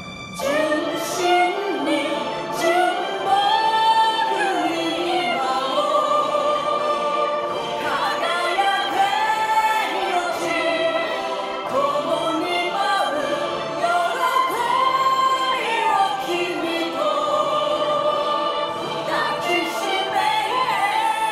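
Yosakoi dance music with a sung melody, coming in sharply about half a second in after a quieter passage.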